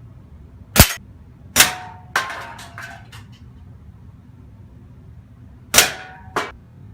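Pellets from a .22 air rifle striking steel plate targets: about five sharp metallic clangs in two groups, several ringing briefly. A patter of small knocks follows the third clang.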